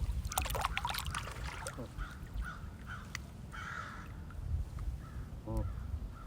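Waterfowl calling in short, harsh calls, with scattered clicks and splashes; one clear call comes about five and a half seconds in.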